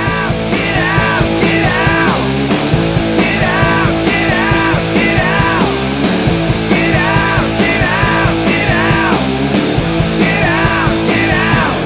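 Loud rock music, built on a short falling melodic figure that repeats over and over.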